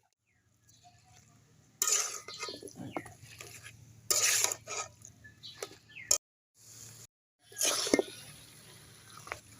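A metal utensil scraping and knocking against a cooking pan as food is stirred, in three louder bursts a few seconds apart with lighter scrapes between.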